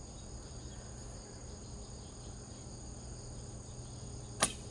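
Steady chirring of crickets throughout. Near the end comes one sharp snap as a traditional bow is loosed and its string slaps forward.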